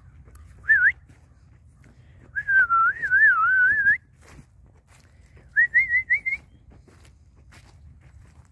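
A person whistling to call cattle in. There is a short rising whistle, then a wavering, warbled whistle lasting about a second and a half, then a quick run of short rising whistles.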